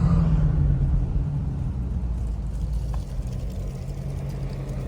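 Car driving, with a steady low engine and road rumble that gradually gets a little quieter.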